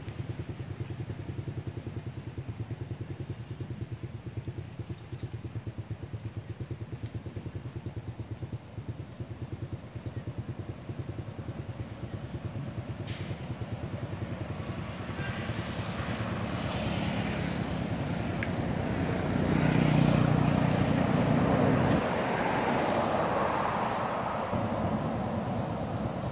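An engine running with a fast, even beat; it grows louder past the middle, stays loudest for a couple of seconds, then drops back.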